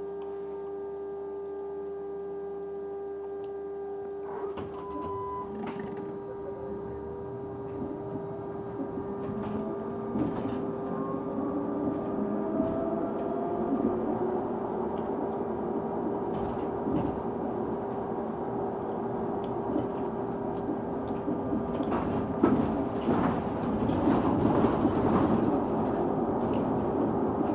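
A bus interior with an odd steady tone held at one constant pitch throughout. From about four seconds in, a whine rising in pitch and growing running noise come in as the bus gets moving, with a few knocks and rattles. It gets louder towards the end.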